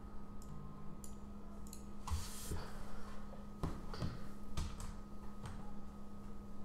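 Irregular clicks and light knocks of a computer mouse and keyboard being used at a desk, about eight in all, with a short rustle about two seconds in, over a steady low electrical hum.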